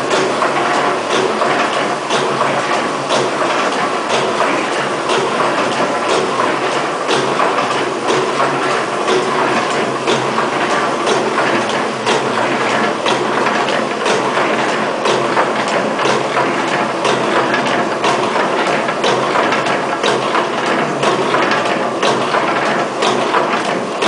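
Automatic rope-tipping machine (SKY-201A) running: a steady, dense mechanical clatter with a sharp click about once a second.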